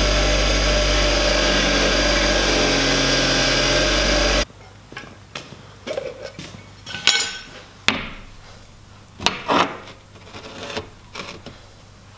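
Bench grinder running with a metal part held against its wheel, a steady grinding noise with a whine, which stops abruptly about four and a half seconds in. After that come quieter workshop handling sounds: scattered knocks, clicks and scrapes.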